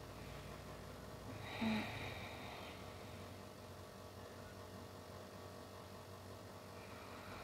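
Quiet background hiss with a low hum, and one short, soft breath about a second and a half in.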